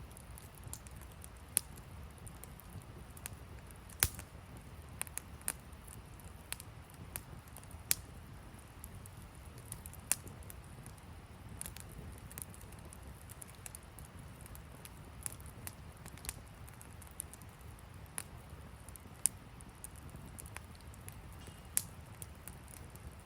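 Wood fire crackling, with sharp irregular pops every second or so over a low steady rumble.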